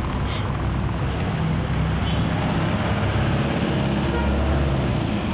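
A motor vehicle's engine running nearby, a steady low rumble that swells a little about four seconds in.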